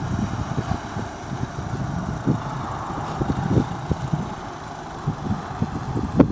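Club Car golf cart running as it drives slowly across a dirt yard, a steady low motor sound with scattered short knocks and a sharper knock near the end.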